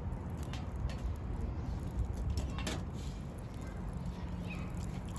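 Wood campfire crackling: scattered sharp pops and snaps over a steady low rumble, with one louder crackle a little past halfway.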